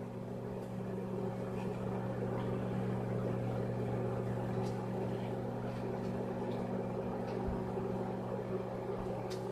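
Microwave oven running with a steady low electrical hum while it heats an egg in a bowl of water.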